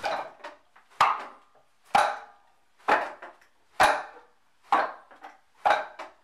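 Wing Chun wooden dummy (muk yan jong) being struck on its wooden arms by hands and forearms during a blocking drill: a sharp wooden knock about once a second, seven in all, each dying away quickly.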